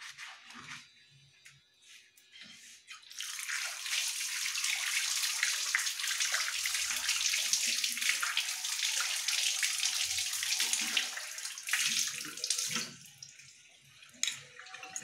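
Water from a kitchen tap running and splashing over hands and a clay diya (oil lamp) as it is rinsed clean after scrubbing. The flow starts about three seconds in and is shut off near the end.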